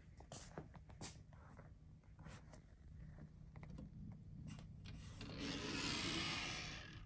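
Faint handling noise: scattered light clicks, then a rubbing scrape that swells over about two seconds and fades, as the turntable's hinged plastic dust cover is raised.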